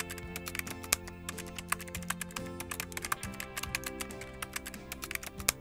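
Computer keyboard typing sound effect, rapid irregular key clicks, over background music with sustained notes.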